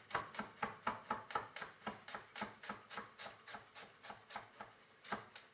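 Chef's knife slicing a garlic clove on a wooden cutting board: quick, even knocks of the blade on the board, about five a second, thinning out near the end.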